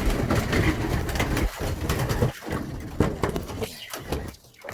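Many racing pigeons cooing together, a dense mass of overlapping calls that eases off near the end.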